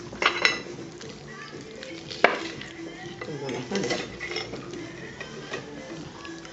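Metal cutlery clinking and scraping on a plate: a couple of ringing clinks near the start and a sharp, louder clink about two seconds in, with faint background music.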